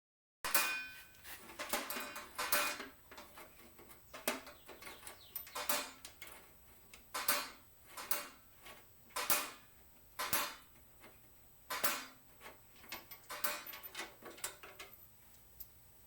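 About a dozen sharp metallic clinks and knocks at irregular intervals, roughly one a second, some briefly ringing, then stopping shortly before the end.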